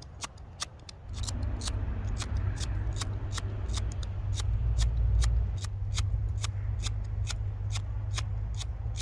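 Wind buffeting the microphone with a low rumble that starts about a second in and stays strong, over a steady run of sharp clicks, about three a second.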